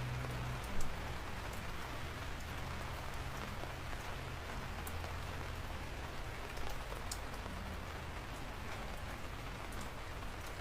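Steady rain falling, with single drops ticking sharply now and then and one louder hit about a second in.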